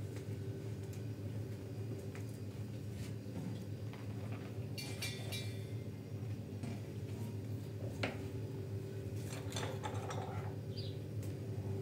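A steady low hum with scattered clicks and knocks, a ringing clink about five seconds in and a sharper click about eight seconds in.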